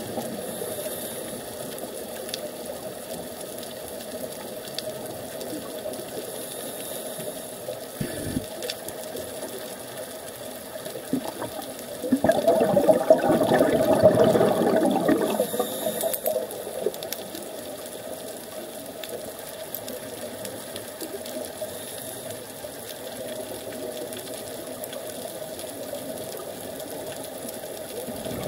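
Underwater ambience heard through a compact camera's housing: a steady muffled hiss, with one burst of scuba exhalation bubbles rumbling for about four seconds from about twelve seconds in.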